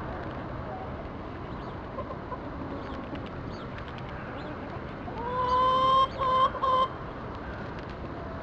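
A chicken gives one loud, drawn-out call about five seconds in. It rises in pitch at the start, then holds steady, breaking off into two short notes at the end. Otherwise there is only a low, steady background.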